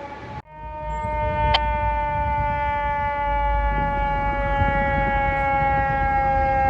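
Fire truck's mechanical siren sounding one long, steady howl that sinks slowly in pitch as it winds down, over a low rumble. There is a sharp click about a second and a half in.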